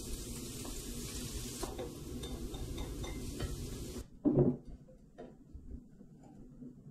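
Diced vegetables and cauliflower rice sizzling in a frying pan as they are stirred, with light scrapes of the utensil on the pan. About four seconds in the sizzling stops, and a single dull knock follows as a bowl is set down onto a plate.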